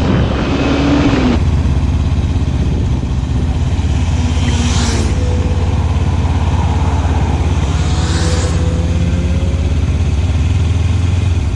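Motorcycle engine running while riding on the road, a steady low drone under rushing noise. The engine note rises, then drops about a second in. Two brief whooshes come about four and eight seconds in.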